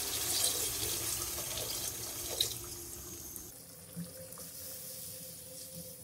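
Water poured into a wok of hot oil and fried masala, splashing and sizzling to make the gravy for an egg curry. The pouring hiss eases off about three and a half seconds in.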